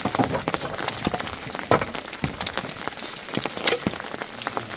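Hailstones and rain striking a hard surface: a dense, irregular patter of sharp clicks and knocks, with one louder hit a little under two seconds in.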